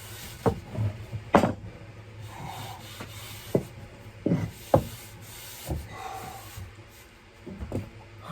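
A cloth rubbing over a wooden axe handle, broken by about six sharp knocks and clunks of wood as the axe is handled.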